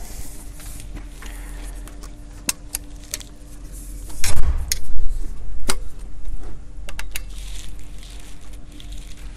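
Handling of an EDgun Leshiy 2 PCP air rifle: scattered metallic clicks and rattles as its parts are worked by hand, with two loud knocks about half a second apart roughly halfway through.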